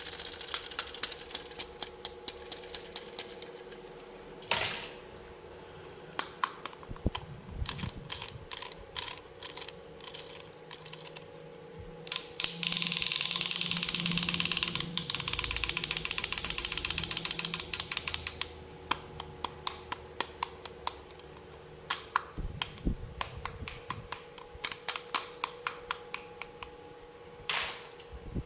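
Small hard plastic toy pieces clicking and tapping as they are handled, in quick irregular runs of sharp clicks, with a rustling hiss lasting several seconds in the middle.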